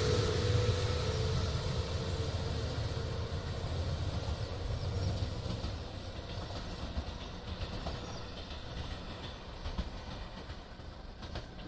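Electric passenger train running away along the track, its wheel and running noise fading steadily as it draws off.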